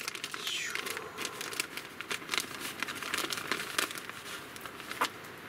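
Clear zip-lock plastic bag crinkling and crackling as hands open it and rummage inside, with a sharp snap near the end.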